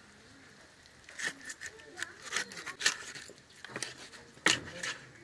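Rohu fish head being cut apart on a boti blade: a run of short, sharp crunching and scraping cuts through bone and flesh, starting about a second in.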